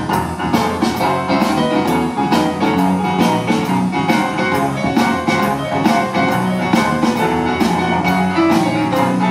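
Live band playing a blues number without vocals: electric guitar and keyboard over bass and a drum kit keeping a steady beat.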